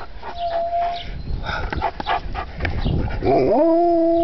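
Alaskan malamute vocalizing: a brief whine and scattered short yips, then about three seconds in a rising howl that levels off into a steady held note.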